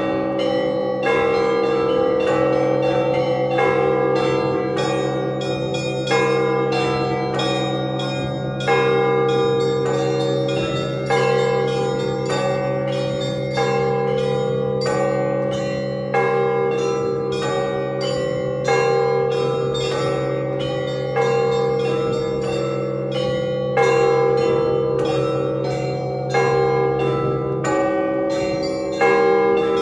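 Russian Orthodox church bells being rung. A large bell is struck about every two and a half seconds and hums low under a fast, repeating pattern of smaller bells.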